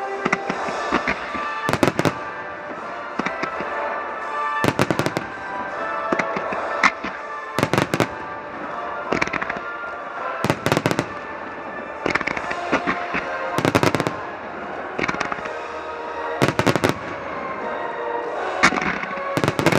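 Aerial fireworks shells bursting in a rapid barrage, loud bangs coming in clusters about every three seconds. Sustained orchestral music plays alongside, the soundtrack the barrage is timed to.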